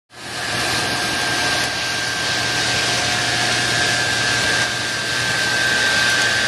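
Combine harvester running steadily while harvesting corn: an even machine drone with a constant high whine.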